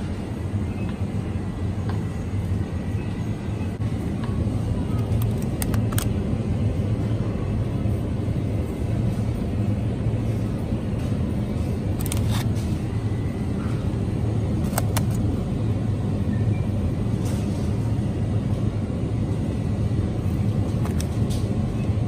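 Steady low hum of open refrigerated supermarket display cases. A few short clicks and crackles come from plastic-wrapped meat trays being handled.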